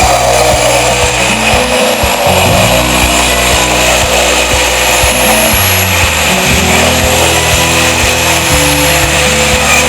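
Circular saw running as it rips a thin lauan plywood sheet into narrow strips, under background music with a changing bass line.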